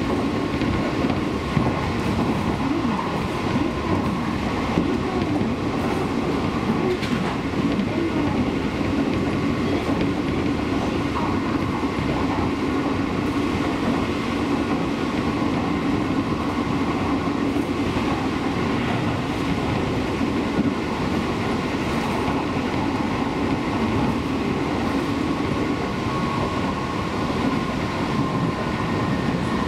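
Seibu Railway electric commuter train running steadily along the line: an even rumble of wheels on rail with a steady hum and whine, and a few faint clicks over rail joints.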